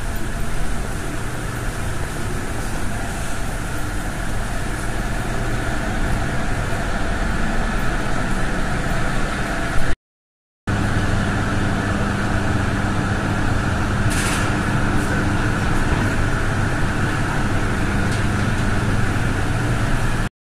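Steady machinery hum and noise of a pumped-storage hydroelectric plant's underground halls, with a few steady low and mid tones. It cuts out briefly about ten seconds in, then carries on the same.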